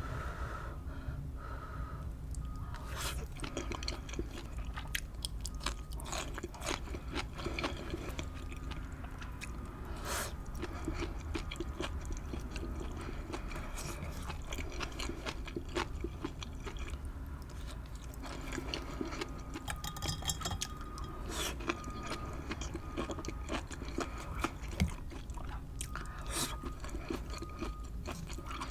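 Close-miked chewing and biting of chicken apple sausage and tortellini: a steady run of short wet mouth clicks and crunches.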